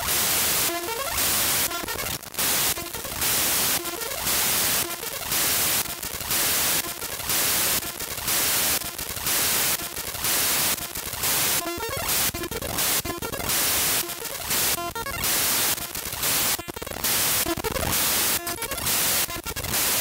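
Raw binary data of the Windows system file shell32.dll.mun played back as audio: harsh digital static, with loud bursts of hiss about once a second alternating with shorter stretches of buzzy, glitchy tones.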